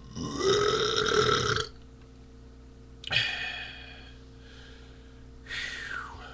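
A man belching three times: one long belch of about a second and a half, a shorter one about three seconds in, and a third near the end that falls in pitch.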